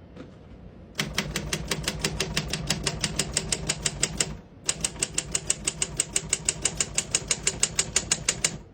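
1971 Royal 470 typewriter clacking in rapid, even runs of strokes, about eight to ten a second, as the carriage is stepped along the line toward the margin. The strokes start about a second in and break off briefly about halfway through.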